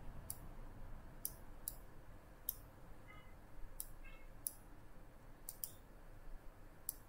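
Computer mouse clicking: about nine light, sharp clicks at uneven intervals over a faint steady background.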